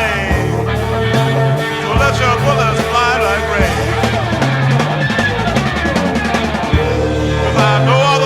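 Live psychedelic rock band: an electric guitar lead with bending notes and long held notes, over bass guitar and drum kit.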